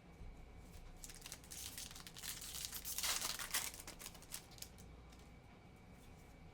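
Foil trading-card pack wrapper crinkling and tearing as it is opened, loudest about three seconds in, with the rustling dying away after about four and a half seconds.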